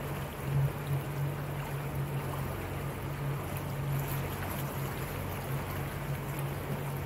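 Motorboat engine running with a steady low hum, under a constant rush of water.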